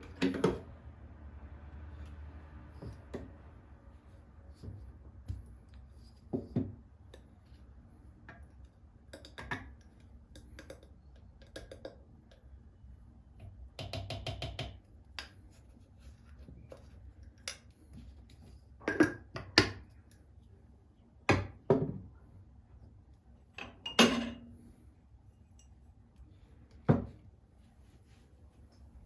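Household objects being handled and set down: a scattered series of light clinks and knocks, like dishes and small hard items, with a short rattle about halfway through.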